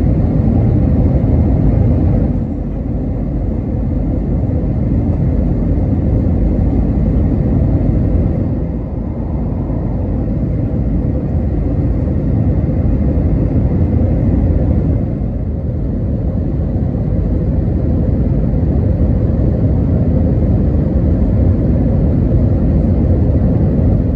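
Airliner cabin noise during descent for landing: a loud, steady low rumble of jet engines and rushing air, with a faint steady hum running through it. The level eases slightly a few times.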